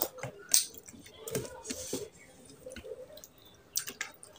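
Close-miked wet eating sounds of rice and mutton curry eaten by hand: a string of short lip smacks and chewing clicks, the sharpest about half a second in, with sticky squishes of fingers mixing rice in the curry near the end.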